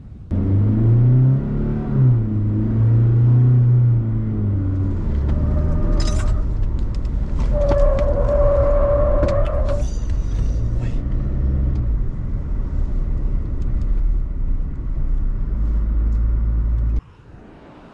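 Diesel pickup truck driven hard through a slalom. The engine rises and falls in pitch as it is pushed and eased off, and a steady tyre squeal sounds for about two seconds around the middle.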